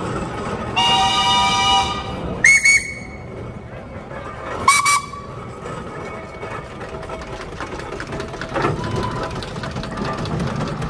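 Steam engine whistles of different pitches: one longer, fuller blast about a second in, then two short high toots, and another short toot about halfway through, over a steady low background noise.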